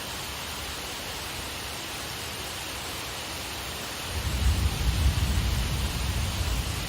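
Steady hiss of a rain shower. About four seconds in, a low rumble swells for around three seconds and then eases.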